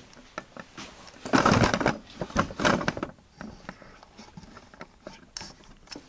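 Handling noise as the camera is moved and set down: winter-jacket fabric rustling right against the microphone and light knocks, loudest in two bursts between about one and three seconds in, then a few quieter scattered knocks.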